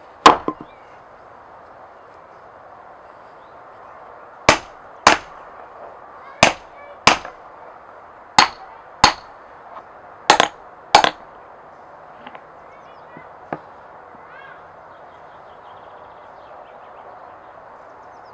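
Sharp, loud striking blows, mostly in pairs about two-thirds of a second apart with a gap of about a second and a half between pairs, stopping about eleven seconds in.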